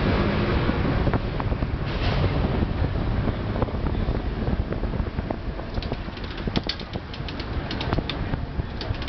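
Streetcar running along its rails, heard from aboard: a steady rumble with rattles and clicks, and a run of sharp, high clicks and squeaks in the second half.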